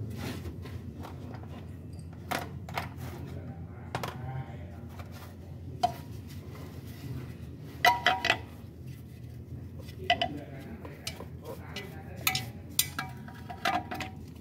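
Metal tools and engine parts clinking under the car: scattered sharp metallic clicks and clinks, with a quick run of them about eight seconds in, over a steady low hum.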